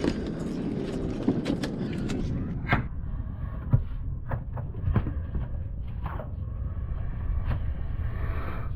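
Wind rumbling on the microphone aboard a small boat at sea, with a string of sharp knocks and clicks on the boat, two of them louder, around three and four seconds in.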